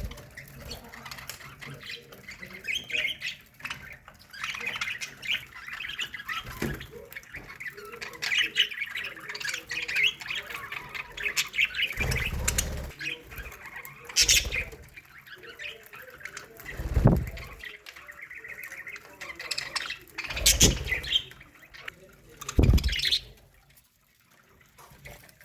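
A flock of budgerigars chattering and warbling continuously, broken by several short, louder sudden sounds spread through it, then thinning out near the end.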